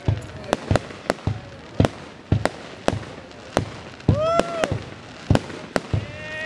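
Aerial firework shells going off in a rapid series of sharp bangs, about two a second.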